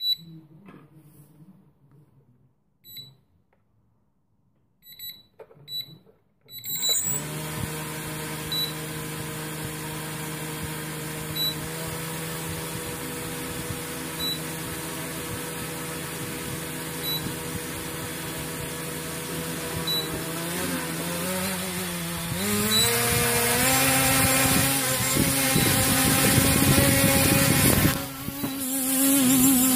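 Short high beeps, then the JJRC X1 quadcopter's four brushless motors spin up about seven seconds in and run with the propellers whirring, a steady hum of several tones. About two-thirds of the way through the pitch steps up and it runs louder, with a brief dip near the end; a single short beep repeats every few seconds over the motors.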